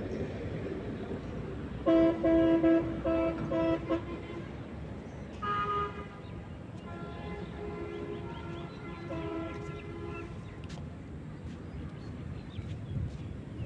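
A horn honks in a quick run of short blasts, then gives a brief higher toot and a longer held blast, over a steady low rumble.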